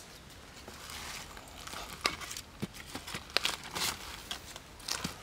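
Small fire of dry twigs crackling, with irregular snaps and light rustling of sticks and leaves.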